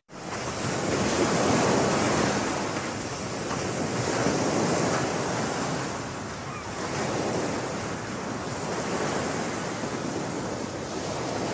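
Ocean surf washing onto a sandy beach, a steady rushing that swells and eases every few seconds.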